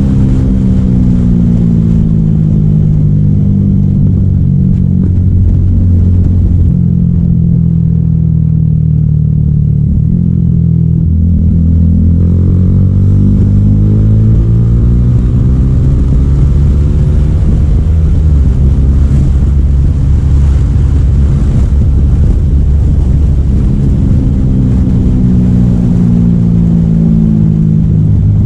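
Motorcycle engine running through an Akrapovic aftermarket exhaust, heard on the move. The revs ease down over the first ten seconds, climb again from about eleven seconds in, hold steady for a while, then drop once more near the end.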